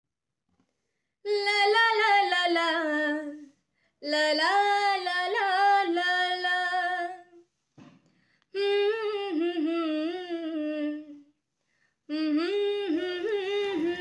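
A woman singing a slow melodic song with no instruments heard, in four long phrases separated by short pauses.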